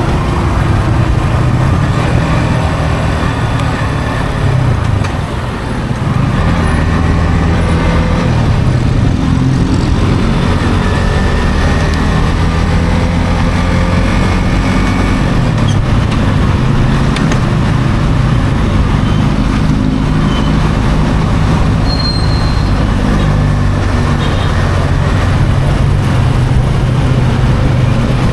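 Yamaha XSR155's 155 cc single-cylinder engine running through its stock exhaust while riding, with wind and road noise. The engine note rises and falls as the bike speeds up and changes gear, with a short dip in level about five seconds in.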